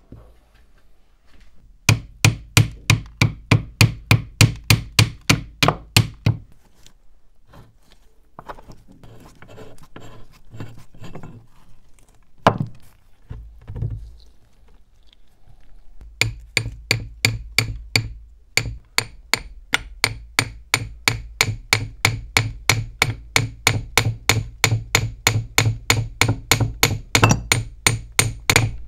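Hammer tapping rapidly and evenly on a rusty, dirt-caked meat grinder, about four blows a second, in two long runs. Between the runs there is scraping and a single heavier knock.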